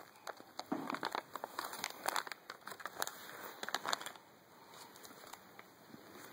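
Crinkly cough-drop wrappers being handled, giving irregular clusters of crackles for about four seconds before it goes quieter.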